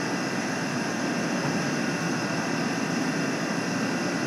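Motor coach's engine running with a steady low rumble.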